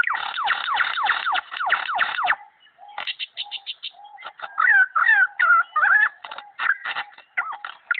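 Superb lyrebird mimicking laser sounds: a fast run of falling 'pew' notes, several a second, for about two seconds, then after a short pause a choppy stream of clicks and warbled whistles.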